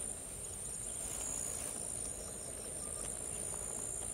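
Steady, high-pitched drone of an insect chorus, crickets or cicadas, over low background noise.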